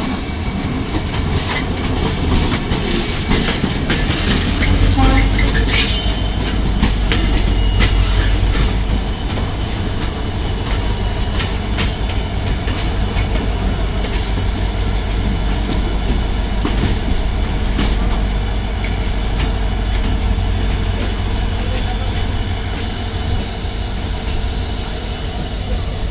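Trains running side by side at close range: twin EMD diesel locomotives (a WDP-4D leading a WDG-4) with heavy wheel-and-rail noise and a low rumble that grows heavier about five seconds in. A steady high whine climbs in pitch about four to six seconds in, then holds. There is a sharp clack about six seconds in.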